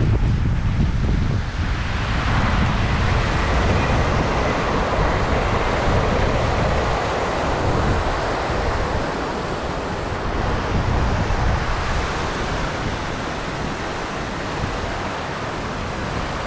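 Wind buffeting the microphone: a heavy low rumble in gusts that eases after about two seconds, over a steady rushing hiss.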